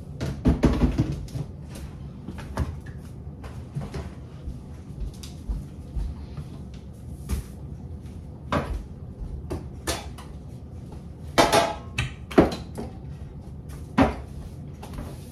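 Kitchen clean-up clatter: scattered knocks and clicks of cupboards, dishes and utensils being handled. Most of them come in the first second, and there are three sharper knocks in the last few seconds.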